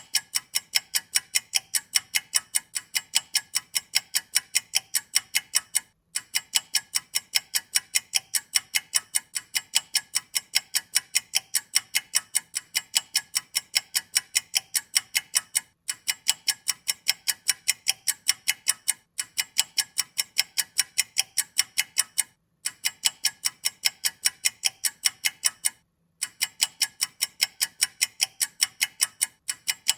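A clock ticking in rapid, even, crisp ticks, several a second. The ticking breaks off for a split second now and then.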